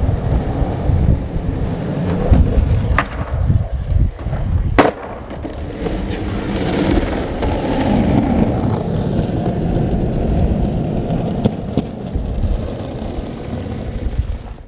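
Wind rumbling and buffeting on a camera microphone outdoors, with two sharp cracks about three and five seconds in, typical of a skateboard striking concrete.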